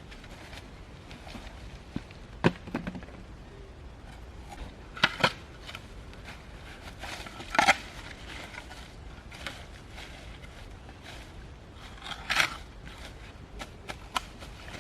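Irregular knocks and taps, a handful spread out with quiet pauses between them, the loudest about halfway through.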